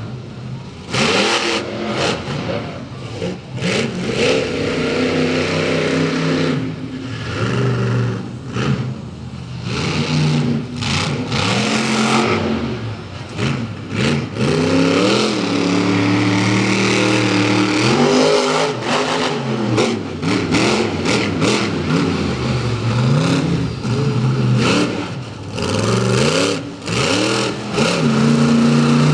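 Monster truck engine revving hard and dropping back again and again as the truck drives and manoeuvres on a dirt track, broken by many sudden knocks and bangs.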